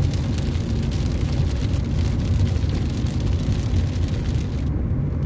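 A car driving in the rain: a steady low road and engine rumble, with the hiss of rain on and around the vehicle.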